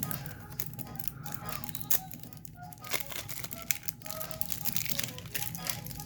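Magic: The Gathering cards being handled and flipped through, giving scattered light clicks and rustles. Faint music plays in the background.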